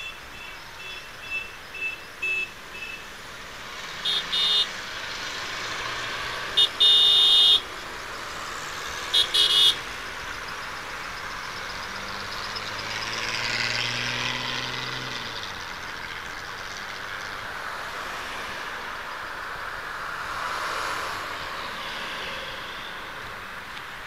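Car horns honking over passing street traffic: a quick run of short toots at the start, a double honk about four seconds in, one long blast about seven seconds in and another double honk near ten seconds. A vehicle drives past around the middle.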